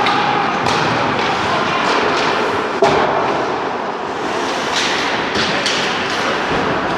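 Ice hockey play in a rink: sticks and puck clacking in scattered knocks over steady arena noise, with one sharp, loud knock about three seconds in.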